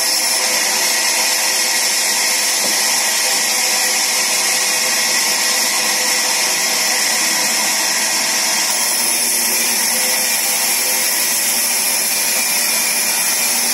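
Sawmill band saw running steadily while its blade cuts through wooden planks pushed across the table, with a steady high whine over the machine noise.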